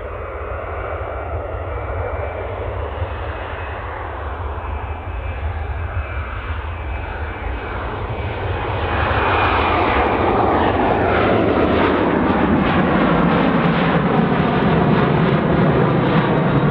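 Boeing 737 Business Jet's twin CFM56-7 turbofan engines at takeoff thrust as the jet lifts off and climbs out. The jet noise grows louder about nine seconds in as it comes overhead, then carries a falling whine as it passes.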